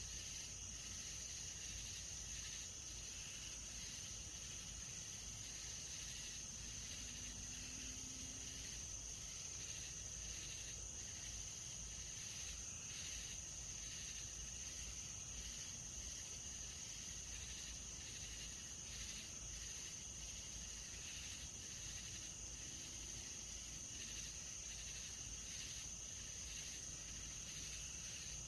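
Faint nighttime insect chorus: a steady high-pitched trill with a fainter pulsing call beneath it.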